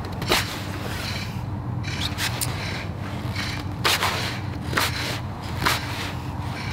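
Straight carving knife slicing shavings off the back of the bowl of a green-wood spoon blank: about six crisp cuts, each a sharp snick, spaced roughly a second apart.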